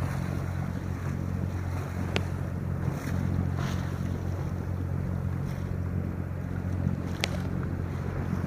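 Wind buffeting the microphone and water rushing and slapping along the hull of a sailboat under way in choppy sea, a steady low rumble throughout. Two brief sharp ticks cut through, about two seconds in and again near the end.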